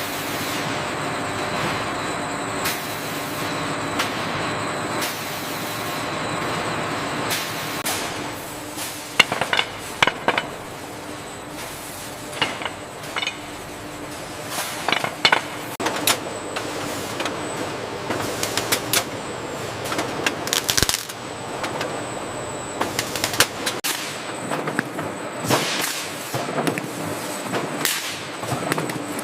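Soap production-line machinery running with a steady hum, punctuated by sharp clacks and clicks that come thicker from about nine seconds in.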